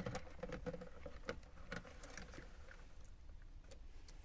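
Faint rustling and scattered light clicks of a bundle of wires and a circuit board with plastic connectors being handled and pulled out of a dashboard cavity.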